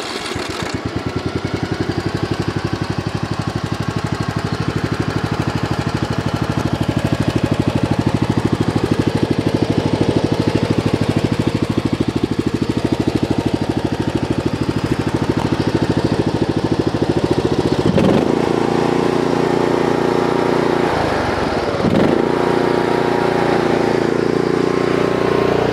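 Briggs & Stratton Intek 19 hp engine on a zero-turn mower running steadily just after being started. Its speed dips briefly twice near the end.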